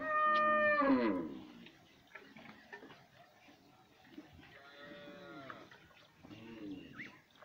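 Cattle mooing: one loud, drawn-out moo lasting about a second that drops in pitch at its end, then two fainter, shorter moos around the middle and near the end.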